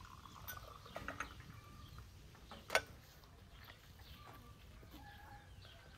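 Tea pouring from a porcelain teapot into a tea glass, with small clinks of glassware and one sharp clink a little before the middle. Birds call in the background in the second half.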